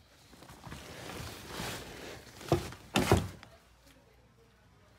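Rustling of someone moving about and handling things, then a sharp knock about two and a half seconds in and a louder cluster of thumps about three seconds in, on wooden floorboards.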